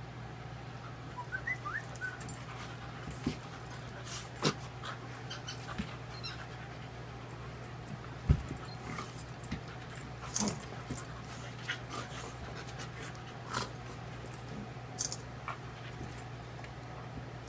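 A golden retriever and a puppy play-wrestling: scattered clicks and scuffles, with soft dog mouthing noises and a few faint short whines near the start. One louder thump comes about eight seconds in.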